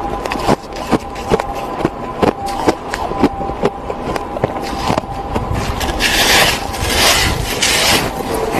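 Packed snow being bitten and chewed close to the mouth: a fast, uneven run of crisp crunches, with a louder, hissing crunch of a big bite from about six seconds in.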